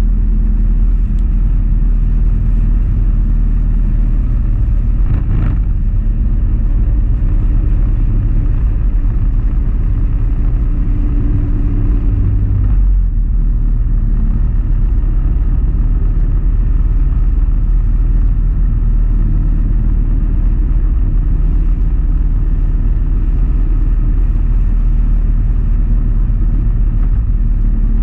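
Motorcycle engine running steadily on the move, under a heavy low rumble of wind and road noise; the engine note shifts about halfway through.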